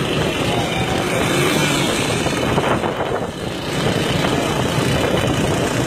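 Motor vehicle engines running, a steady noisy drone.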